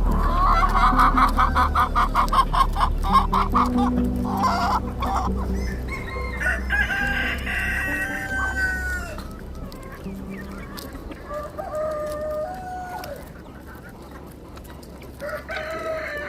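Chickens clucking: a fast run of clucks in the first few seconds, then longer drawn-out calls that rise and fall, fading to fainter calls near the end.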